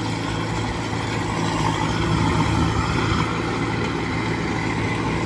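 Kubota DC-105X combine harvester running steadily while cutting rice: a constant engine hum under an even mechanical whir.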